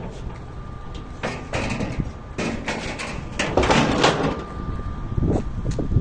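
Scraping and rustling noises, several in a row between about one and four seconds in, with a couple of short knocks near the end, over a low rumble.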